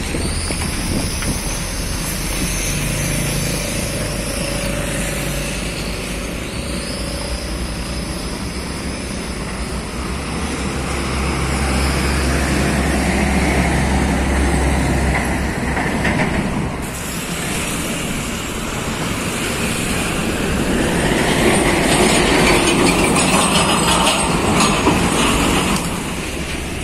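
Heavy diesel trucks and motorcycles passing on a busy road: a steady low engine drone, with high thin squealing tones over the first several seconds. The sound changes abruptly about two-thirds of the way through.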